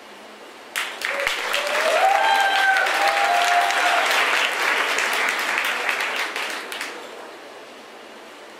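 Audience applauding, starting about a second in and dying away near the end, with one voice cheering briefly in the middle.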